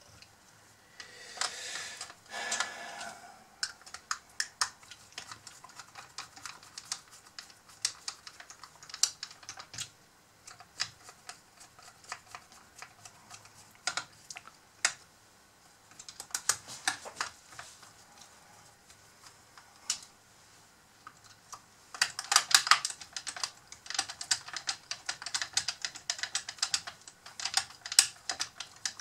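Irregular small clicks and taps of metal parts and screws being handled and fitted on the boom of a full-metal RC excavator, with a short rustle in the first seconds and a denser run of louder clicks near the end.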